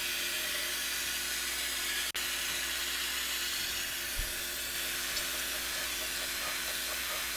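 Surface grinder running: the motor and spinning grinding wheel give a steady hiss over a low hum as the wheel takes a light pass across a steel plate, looking for high spots.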